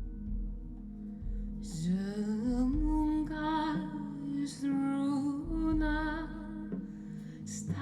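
Recorded music played over Electrocompaniet electronics and TAD loudspeakers in a show demo room: a slow, soft piece with sustained low chords and deep bass notes. A gliding melody line enters about two seconds in.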